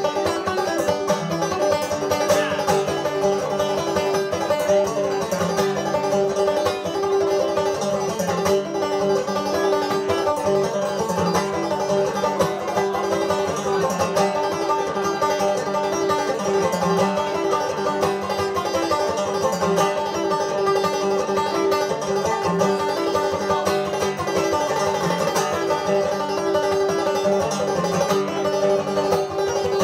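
Five-string banjo played clawhammer style, a Scottish tune picked at a steady, lively pace over a constant ringing drone note.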